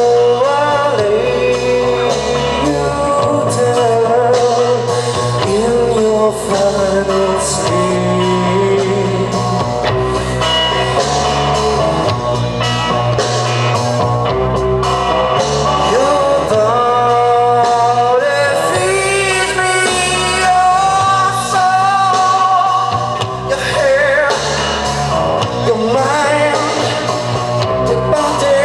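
Live rock band playing a song: a singer's voice over electric guitars and a drum kit.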